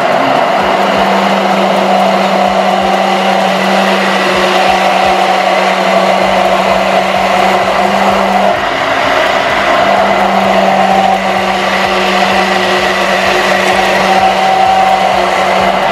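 Hand-held immersion blender running steadily in a tall beaker, emulsifying soy milk and oil into a thick vegan mayonnaise as it is slowly raised and lowered. Its hum dips briefly about halfway through.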